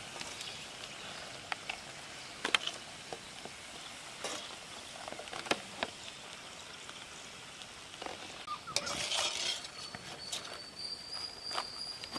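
Puris frying in hot oil: a soft, steady sizzle with scattered clicks and taps of a utensil. Near the end a thin, high, steady tone joins in for a couple of seconds.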